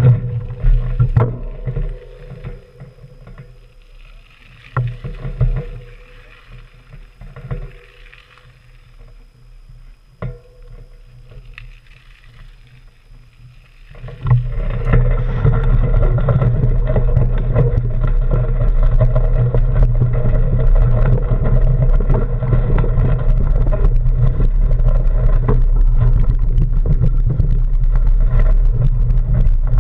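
Bicycle riding on a gravel trail, heard through a bike-mounted action camera. For about the first half there are scattered knocks and crunches as the bike rolls slowly. Then it changes suddenly to a loud, steady rush of wind on the microphone and tyre noise from riding at speed.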